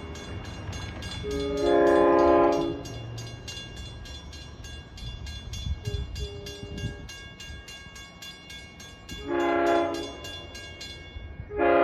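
Long Island Rail Road DE30AC diesel locomotive approaching and sounding its Nathan K5LLA five-chime horn: a long blast, a shorter and fainter one, another short one, and a fourth starting right at the end. Under the horn run a low engine rumble and a quick, even ticking about five times a second that stops shortly before the last blast.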